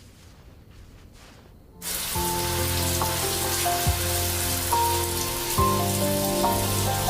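A steady rain hiss and background music of held notes over a low beat start abruptly about two seconds in, after a quiet opening.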